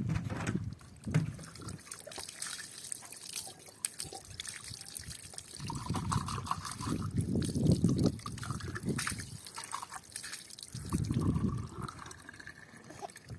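Water being poured, trickling and splashing in a few separate spells.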